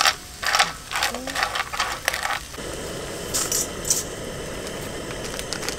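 Hard clinks and clatter in a frying pan for the first couple of seconds, then steady sizzling of olive oil with garlic and peperoncino frying, with a few brief clinks just after the sizzle settles in.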